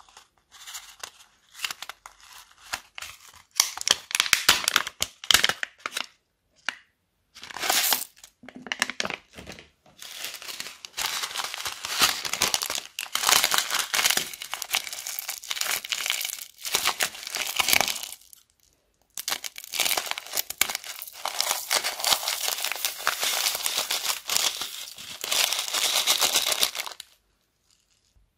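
Small plastic zip-lock bags crinkling and crackling as they are handled, pulled open and emptied by hand, in several long stretches with short breaks.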